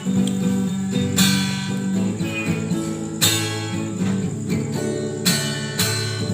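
Instrumental passage of a song with no singing: acoustic guitar strumming a chord about every two seconds over sustained low bass notes.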